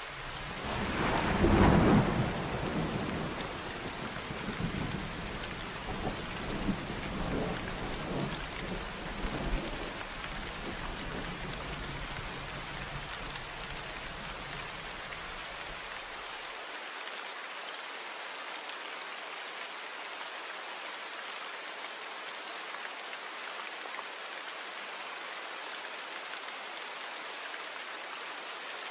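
Steady rainfall with a thunderclap about a second in, followed by a rolling rumble that dies away over roughly the next ten seconds.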